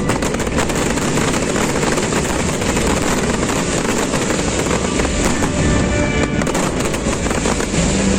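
Fireworks crackling and bursting in a dense, continuous barrage, many cracks close together, with show music playing underneath.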